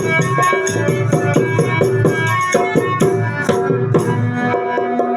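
Live folk music: a fast, even beat of drums and a rattling shaker at about four strokes a second over held melodic tones, the shaker strokes dying away near the end.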